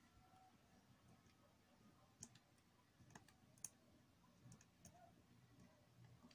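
Near silence with a handful of faint, irregular clicks from an opened portable CD player as it is handled and tried with a disc.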